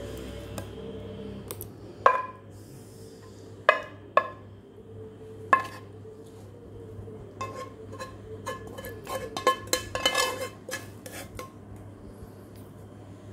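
A plastic spatula knocking and scraping on a coated frying pan, with the pan clinking against a plate, while thick sambal is scraped out of it. A few separate knocks come first, then a quick run of clinks and scrapes.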